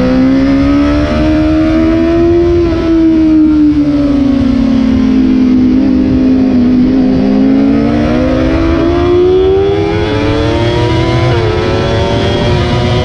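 Onboard sound of a 2007 Honda CBR600RR's inline-four engine on track. It revs up at first, then the pitch falls slowly through a corner. It climbs again on the drive out, with two quick drops near the end that mark upshifts.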